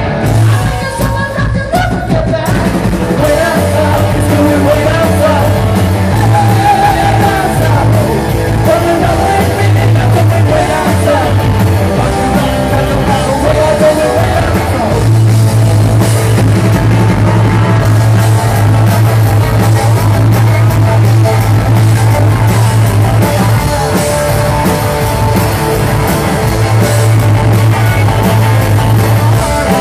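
Live rock band playing loud: electric guitars and drums, with a lead vocal sung into the microphone, the singing plainest in the first half.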